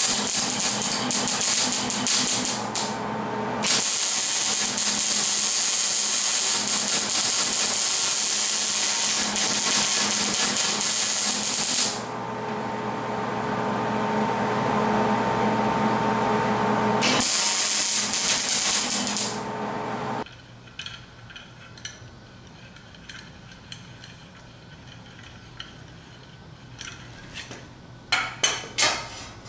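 Electric arc welding on the steel frame rail: the arc crackles and hisses in three long runs over the welder's steady hum, which goes on alone for a few seconds between runs. Near the end come a few sharp clinks of metal on metal.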